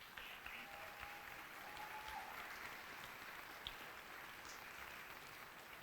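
Audience applauding steadily in a large chamber, cutting off abruptly near the end.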